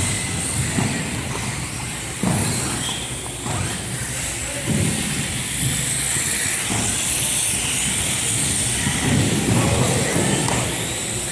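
Mini off-road race cars running laps on the track: a steady hissing whine of motors and tyres, swelling louder now and then as cars pass.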